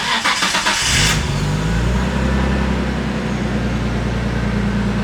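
Car engine cranked by the starter for about a second, then catching and settling into a steady idle.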